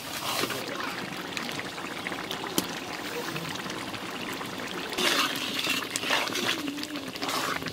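Wet masala being mixed by hand and stirred in an aluminium pan, with liquid sloshing and trickling sounds, busier and louder about five seconds in.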